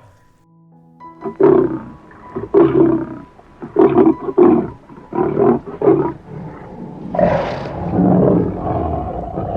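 An animal calling loudly over background music: a series of about eight short, separate calls, then one longer drawn-out call near the end.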